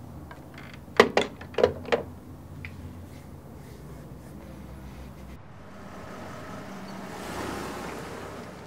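Corded telephone handset set down onto its cradle: four quick knocks about a second in, over a low room hum. A soft hiss swells and fades near the end.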